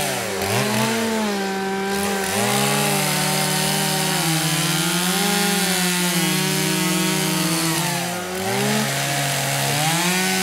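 Petrol chainsaws cutting into a block of ice, the engines revving up and down as the throttle is worked. At least two saws run at once, their pitches rising and falling independently, with the engine note dropping briefly about half a second in and again near eight seconds in.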